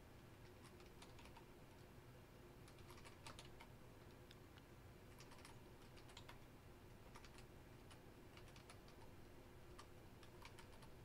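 Faint typing on a computer keyboard: scattered keystrokes in short, irregular runs with small pauses between them.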